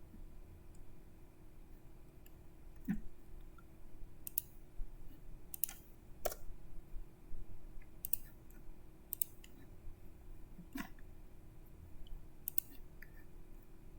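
Scattered clicks of a computer mouse, about a dozen at irregular intervals, over a faint steady hum.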